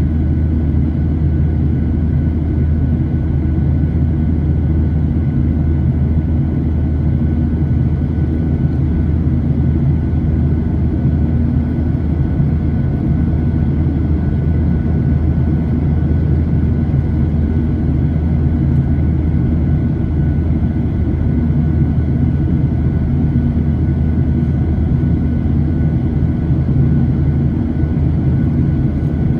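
Steady cabin noise of a jet airliner in flight, heard from a window seat over the wing: engine drone and rushing air, mostly a low rumble, with a faint steady high whine above it.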